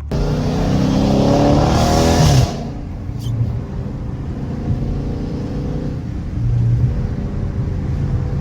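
Dodge Challenger Scat Pack's 392 Hemi V8, its catalytic converters gutted, accelerating hard. Its pitch climbs for about two and a half seconds, drops suddenly at a gear change, then the engine pulls steadily and builds again near the end.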